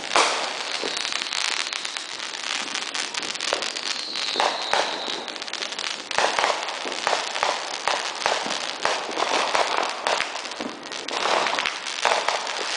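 Fireworks going off in the sky: a run of sharp bangs and crackling, the loudest bang right at the start, with a high whistle lasting about a second and a half around four seconds in.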